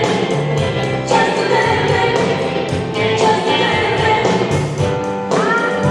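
Music with singing voices over a steady beat, ending on a long held note near the end.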